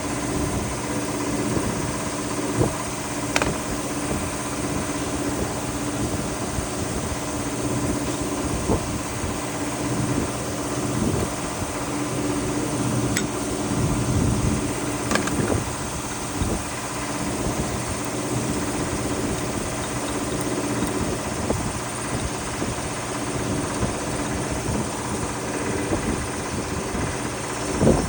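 Car engine idling steadily, with a few light clicks along the way.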